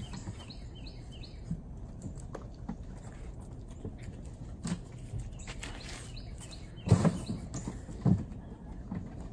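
Small birds chirping in the background, a quick run of short calls in the first second or so, with soft footsteps and scattered light taps on concrete. Near the end come two short, louder thumps about a second apart.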